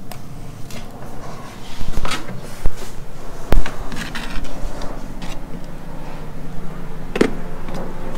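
Knocks and handling noise from pouring two-part expanding foam out of a measuring container into a wooden form, with a few sharp knocks, the loudest a little past a third of the way in. A steady low hum runs underneath.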